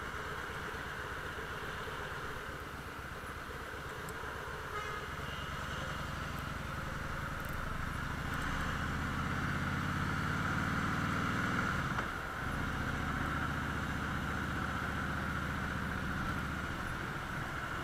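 Harley-Davidson Softail FLSTFI's V-twin engine running under the rider as the bike moves through traffic, over steady wind and road hiss. The engine note builds and grows louder from about six seconds in, dips briefly about twelve seconds in, then carries on steadily.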